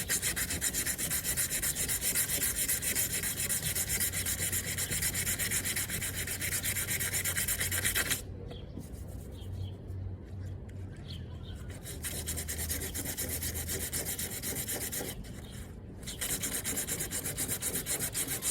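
Sandpaper scrubbing across the rear fender panel of a Mitsubishi Eclipse GS in quick, steady strokes. It drops to a softer scratching about eight seconds in and picks up hard again near the end.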